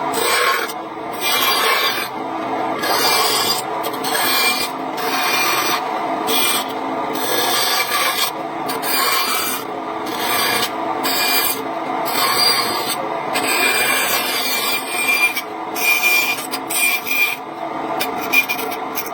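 Wood being rasped or sawn by hand in repeated back-and-forth strokes, roughly one to two a second, with short pauses between them.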